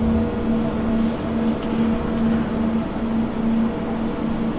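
Steady machinery hum inside a ship, a low droning tone that swells and fades about every half second over a constant rushing noise, with a few faint clicks.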